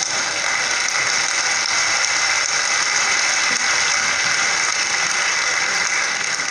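Audience applauding, a dense steady clatter of clapping.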